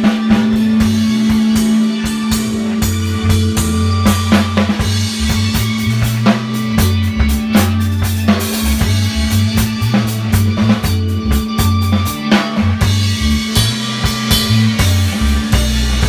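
Improvised dub jam: a drum kit beat over a deep bass line that moves between notes, with a steady held note above it.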